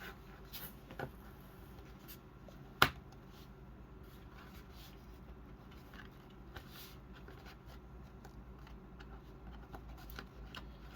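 Plastic action figure being handled and set on its feet: faint rubbing and scattered small clicks, with one sharp tap about three seconds in.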